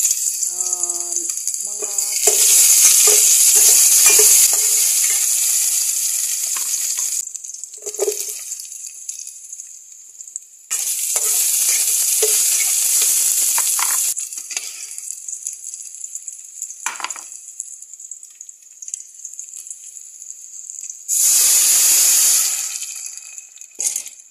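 Garlic and ginger sautéing in hot oil in a stainless steel pot: loud sizzling that comes in three spells and dies down between them. A few knocks of a spoon stirring against the pot.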